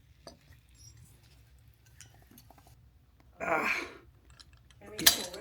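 Small clicks and taps of hand work on a motorcycle carburetor part, a breathy exhale a little past the middle, and one sharp metallic snap near the end, the loudest sound here.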